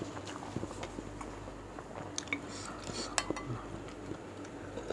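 Close-miked eating sounds: chewing and small mouth clicks, with a few sharp ticks scattered through.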